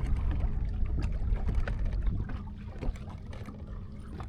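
Fishing boat on open water: a steady low rumble of wind and water with a faint steady hum, growing a little quieter toward the end.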